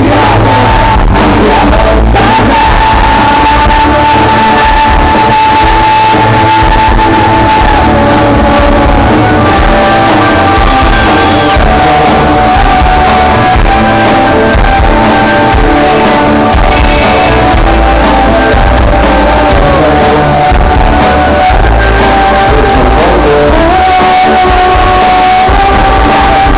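Live rock band playing with singing, heard loud from the audience, with long held notes over drums and bass.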